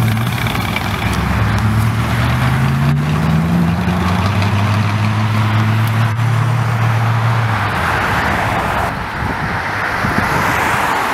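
Car engines as cars pull out onto the road: a low engine note climbs in pitch as one car accelerates, then holds steady before dropping away about eight seconds in. After that comes the hiss of tyres on the road as another car approaches.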